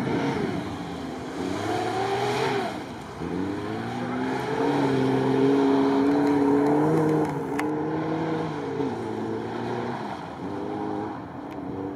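Lada Niva engine revving hard under load, its pitch rising and falling several times and held highest and loudest for a few seconds in the middle.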